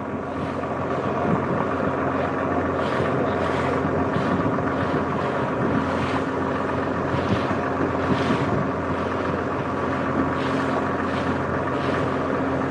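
A wooden river boat's engine running steadily under way, a constant hum, with wind gusting on the microphone.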